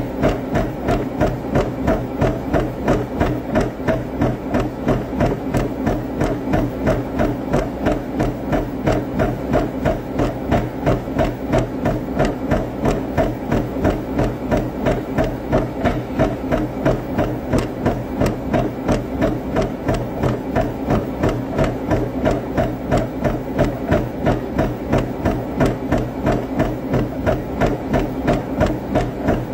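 Running footfalls thudding on a treadmill deck in a steady even stride, about three a second, over the steady hum of the treadmill's motor and belt.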